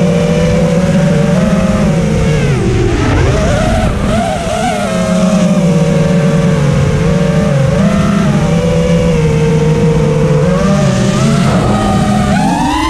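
FPV racing quadcopter's brushless motors and propellers whining as heard from its onboard camera, the pitch sliding up and down with the throttle through the flight. The whine dips about three seconds in and climbs sharply near the end as the throttle is punched, over a rush of air past the quad.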